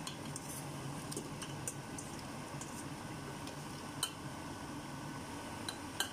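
Metal spoon clinking against a stainless steel cooking pot as fried potato cubes are tipped into the curry: a few light clinks early, then two sharper knocks about four and six seconds in, over a steady low hum.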